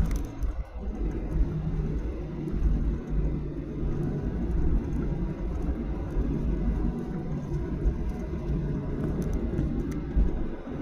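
Steady low rumble inside the cabin of a Boeing 737-800 airliner, with a faint hum that fades in and out.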